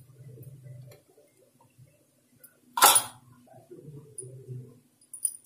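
A cut piece of snake gourd dropped into a plastic bowl: one sharp knock about three seconds in, among faint handling sounds.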